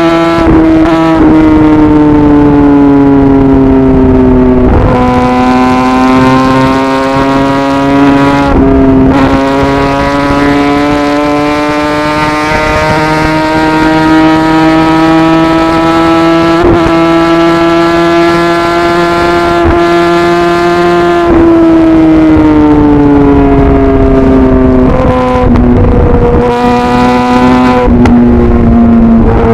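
Kawasaki ZX10R inline-four engine under way on a ride. Its pitch drops sharply twice in the first ten seconds as it shifts up, then rises slowly and steadily for a long stretch. About two-thirds of the way through it falls away smoothly as the throttle is rolled off, with a few quick pitch steps near the end.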